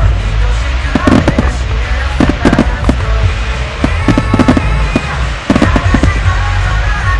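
Aerial fireworks shells bursting in rapid clusters, sharp bangs about every second over a continuous low rumble. Music plays from loudspeakers underneath.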